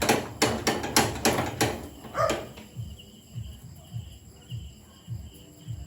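A quick run of about six knocks or clanks at a charcoal grill in under two seconds, followed by a single dog bark. Crickets chirp steadily in the background.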